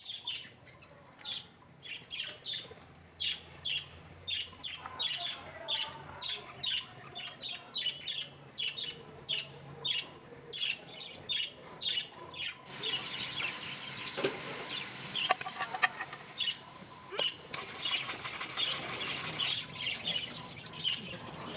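A bird chirping over and over, about two short calls a second, with a steady hiss joining in from about halfway through until near the end.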